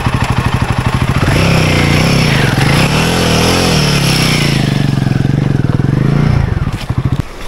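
Royal Enfield Himalayan 450's single-cylinder engine idling, then revved hard and held high for about five seconds with the pitch wavering, as the bike is driven to get free of deep mud. The revs drop back near the end.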